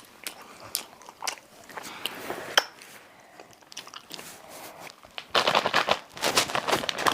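Crunchy food being bitten and chewed close up: scattered sharp crunches, then, about five seconds in, a loud dense run of crunching.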